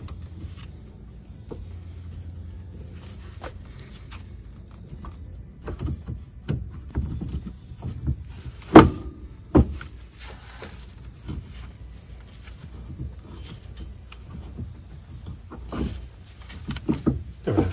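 Clunks and clinks of the rear wheel hub bearing assembly being worked off the axle, with one loud knock about halfway through and a second soon after. A steady high drone of insects runs underneath.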